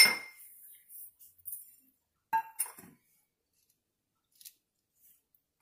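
Two metallic clinks that ring briefly, the first sharp and loudest, the second about two and a half seconds later, with faint rustling between: a stainless steel plate knocked while crumbly ragi puttu is mixed in it by hand.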